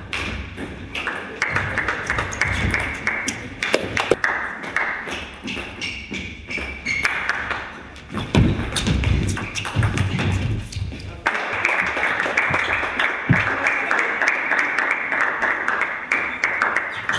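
Table tennis in a sports hall: sharp clicks of the ball off bats and table, with spectators clapping, first briefly near the start and then steadily for about six seconds from around eleven seconds in.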